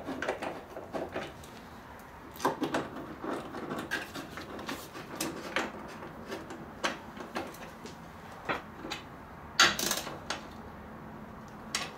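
A small hand socket wrench turns bolts into a snowmobile's plastic seat backrest cover, giving irregular clicks and knocks of the tool and bolts against the plastic, with a sharper pair of clicks about ten seconds in.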